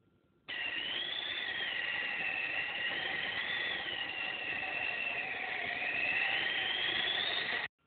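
Steady rushing noise with a high whistling tone that slowly wavers up and down in pitch. It starts abruptly and cuts off suddenly just before the end.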